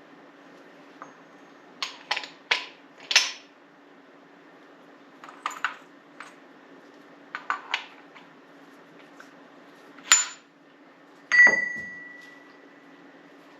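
Metal parts being handled and set down on a hard surface: clusters of short clinks and knocks, then a sharper metal strike about eleven seconds in that rings for about two seconds. A steady low hum runs underneath.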